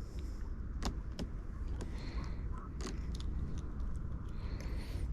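Steady low rumble with several sharp clicks and light rattles, the clearest about a second in and again near three seconds.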